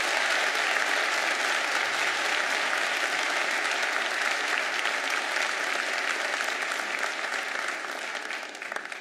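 A large audience clapping steadily, the applause dying down near the end.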